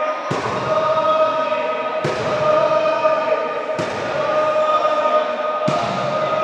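Futsal crowd chanting in a sports hall, a held, droning chant. A loud thump cuts through it about every two seconds, four times.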